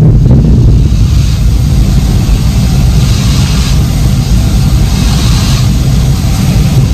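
Construction machinery running next door: a steady deep engine-like rumble, with a higher hiss swelling and fading about three times.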